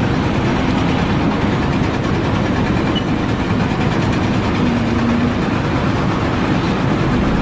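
A heavy engine running steadily, a loud even rumble with no change in pitch.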